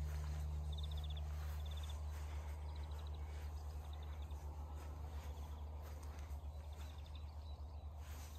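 A small bird singing outdoors: short, high, rapid trills repeated every second or so, over a steady low rumble.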